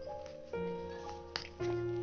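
Background music of held notes over a steady bass, the chord changing about every second.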